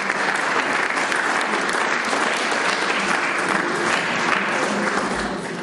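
Audience applauding, a steady round of clapping that thins out near the end.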